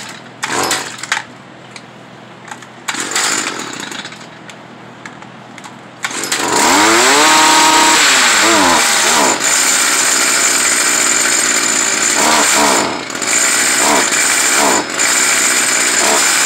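Stihl FS 55R string trimmer's small two-stroke engine, quiet with a few short sounds at first. About six seconds in it revs up loudly and runs at high speed, its pitch sweeping up and down and dipping briefly a few times. The mechanic judges it is running badly enough to need a new carburetor.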